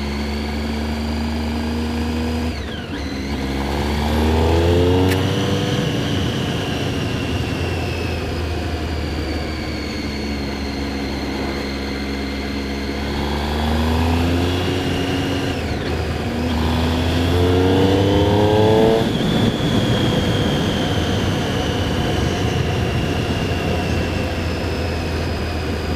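Triumph Street Triple 675's three-cylinder engine heard from the saddle while riding. It runs steadily, then rises in pitch under acceleration about three seconds in, again around fourteen seconds and again around seventeen to nineteen seconds, with a brief break near sixteen seconds. A broader wind-like rush takes over in the last part.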